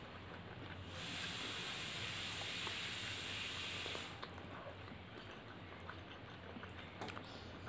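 Close-up eating sounds of fingers mixing rice and curry on a steel plate, with faint small clicks and chewing. A steady hiss starts about a second in and cuts off about three seconds later, and it is the loudest thing heard.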